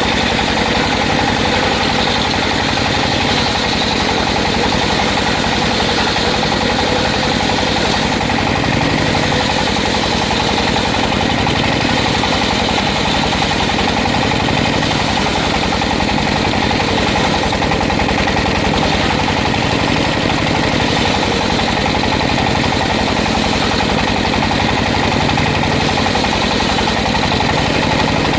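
Engine-powered circular sawmill running steadily, the engine note unbroken throughout.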